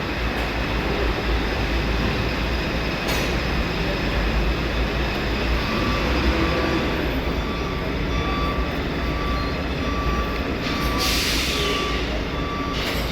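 Steady low rumble of a heavy truck's diesel engine running. From about the middle on, a short electronic beep repeats roughly twice a second.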